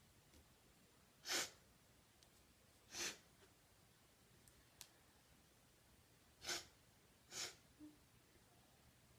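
A woman sneezing four times, each sneeze a short breathy burst: two about a second and a half apart, then a pause, then two about a second apart.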